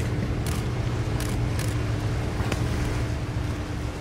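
Boat engines running with a steady low rumble and a constant hum. A few brief hissing rushes come in the first couple of seconds.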